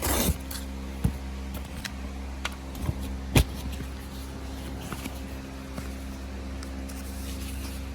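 Paper envelopes being handled and fumbled at while someone tries to open them: a short rustle at the start, then a few sharp clicks and faint ticks, the sharpest about three and a half seconds in, over a steady low hum.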